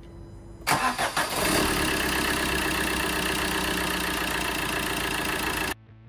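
Peugeot 1.3 HDi diesel engine starting: it cranks and catches about a second in, then runs steadily at idle to fill the injector leak-off test pots. The sound cuts off suddenly near the end.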